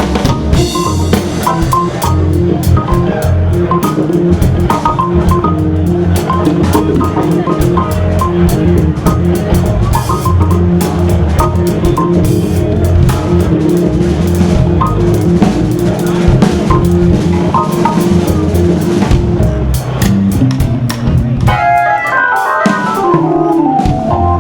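Live soul-jazz band with Hammond organ and drum kit playing a groove, the organ holding a note over the drums. Near the end a fast run of notes falls from high to low while the bass drops out briefly.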